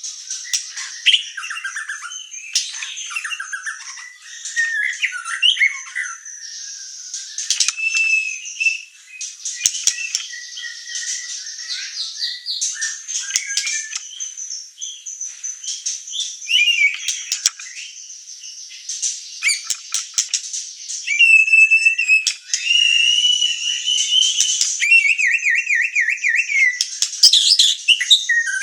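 White-rumped shama (murai batu) singing without pause: a quick, varied run of whistles, harsh chattering squawks and fast trills, in full, steady song.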